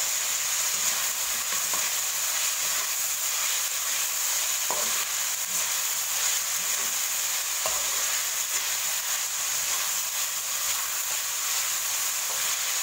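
Chicken and sliced chillies sizzling in hot oil in a wok, stirred with a slotted spatula that scrapes over the pan, with a couple of sharp knocks about 5 and 8 seconds in. The spatula makes the stirring noisy.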